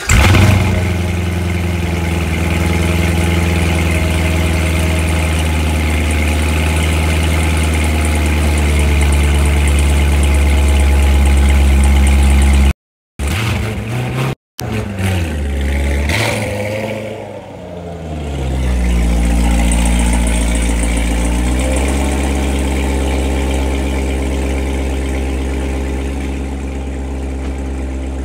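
A 2017 Corvette Stingray's 6.2-litre V8 on a cold start through a Corsa X-pipe and NPP exhaust. It flares loudly as it fires, then runs at a steady fast idle. After two short dropouts about thirteen seconds in, the pitch wavers and dips, then settles into a lower, steadier idle.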